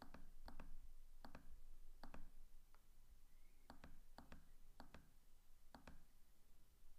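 Faint clicks of a computer mouse button, about ten at an uneven pace.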